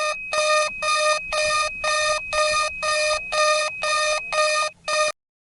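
Emergency-alert-style alarm: a harsh electronic tone that pulses about twice a second over a steady high tone. It cuts off suddenly near the end.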